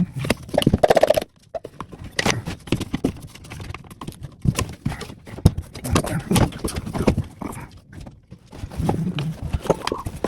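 Irregular series of hard wooden knocks and taps as a hardwood spine piece is worked and driven into a glued joint in a broken table leg.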